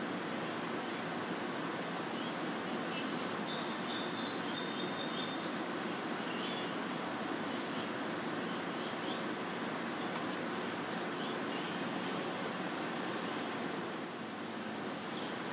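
Outdoor summer ambience: a steady background hiss with a thin, high insect trill. Short high chirps are scattered through it and come thicker about ten seconds in.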